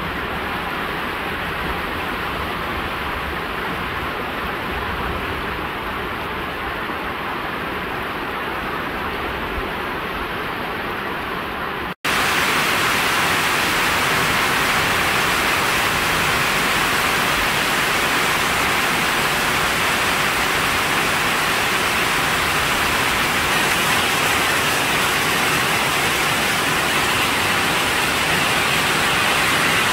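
Steady rain falling on banana plants and bare ground. About twelve seconds in it cuts abruptly to louder, brighter rain.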